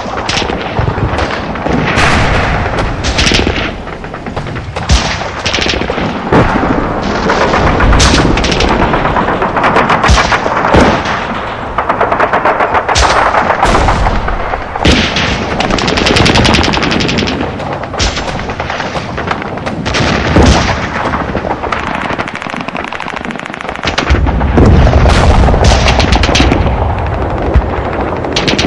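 Battle sound effects: dense gunfire, rapid machine-gun bursts mixed with single shots, with a stretch of very fast repeated fire around the middle. Heavy low booms of explosions or artillery come in under it, strongest near the end.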